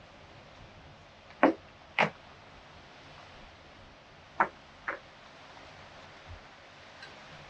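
Four sharp knocks in two pairs, each pair about half a second apart, over a faint steady hiss.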